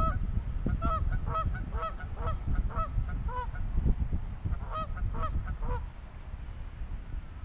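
Geese honking, a rapid run of short calls about two a second that thins out and stops about six seconds in, over low wind rumble on the microphone.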